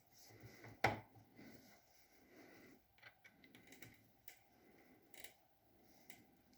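Small metal parts being handled on a workbench: one sharp knock about a second in, then scattered light clicks and taps.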